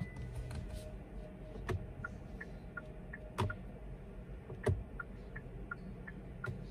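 2021 Hyundai Santa Fe's turn-signal indicator ticking, about three ticks a second, switched on and off by sharp clicks of the indicator stalk: it ticks for a couple of seconds, stops, then starts ticking again.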